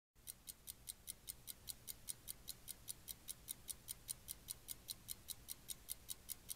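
Fast, even clock-like ticking, about five ticks a second: a time-passing sound effect over the 'one minute later' card.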